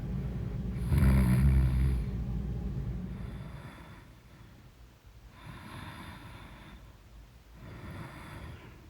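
A person snoring in sleep: a loud, low snore that peaks about a second in and dies away by about four seconds, then two softer, breathier snores, one near six seconds and one near eight.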